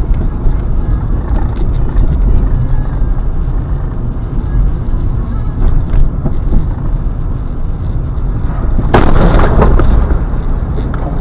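Dashcam audio of a car on the road: a steady low rumble of road and engine noise, then about nine seconds in a loud crash lasting about a second.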